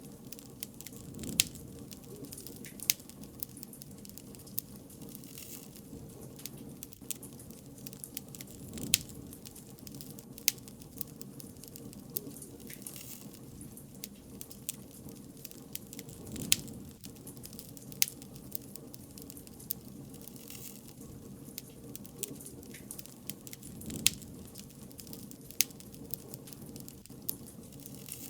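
Wood fire crackling: sharp pops and snaps at irregular intervals over a steady low rustle of burning, with a soft surge about every seven to eight seconds.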